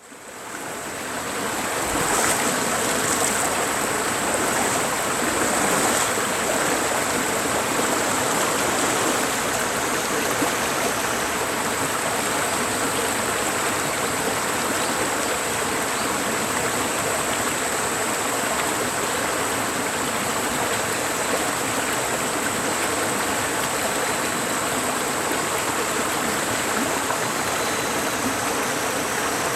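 Mountain valley stream rushing steadily, fading in from silence over the first second or two. A thin, steady high-pitched tone sits above the water.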